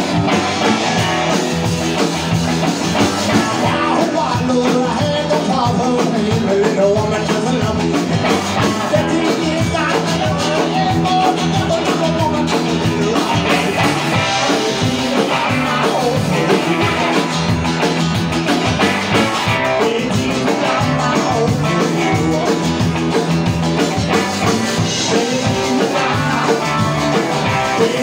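Live outlaw country-rock band playing a song: acoustic guitar, electric guitar, upright double bass and drums over a steady, driving beat.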